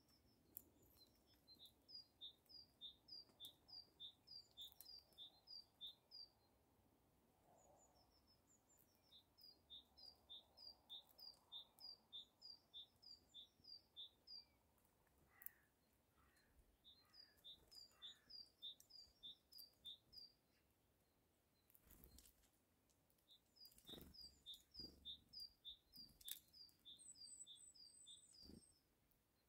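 Faint songbird song: a two-note phrase repeated about three times a second, in runs of several seconds broken by short pauses. A few faint clicks and taps come in the second half, and a brief higher twitter near the end.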